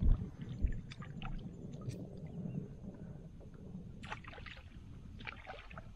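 Water splashing and dripping around a kayak paddle blade held at the surface: a few short splashes, the sharpest right at the start, over a low steady rumble.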